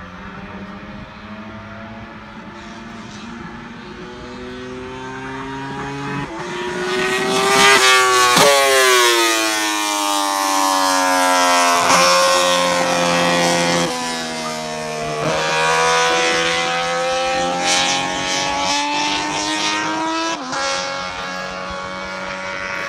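Racing motorcycles accelerating on the circuit, engines revving up and dropping in pitch at several gear changes. They grow loudest about eight seconds in as they pass close by.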